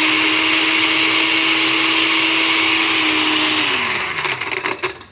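Electric countertop blender running steadily on a jar of ice and water, then switched off about three and a half seconds in, its motor winding down with a falling pitch and a few clicks as it stops.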